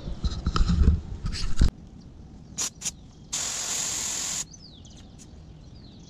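Air hissing out of a mountain bike tyre's valve for about a second, let out to lower the pressure of an over-hard tyre. Before it, knocks and rumble from the camera being handled, then two sharp clicks.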